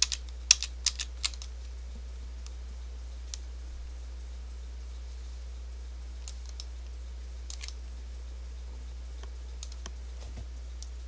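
Computer keyboard and mouse clicking: a quick run of keystrokes in the first second and a half, then scattered single clicks, over a steady low hum.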